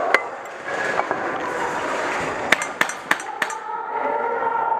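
Airsoft guns firing in an indoor arena: a single sharp snap at the start, then a quick string of four about two and a half to three and a half seconds in.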